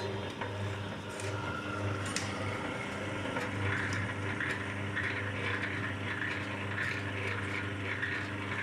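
Electric cable-stripping machine running: a steady hum from its motor and reduction gearbox. Over it comes an uneven scraping and crackling as a cable is pulled through between the rollers and its insulation is slit by the knife.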